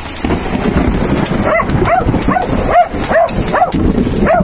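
Dog whimpering in short, rising-and-falling whines, two or three a second, starting about a second and a half in, over a steady hiss of rain.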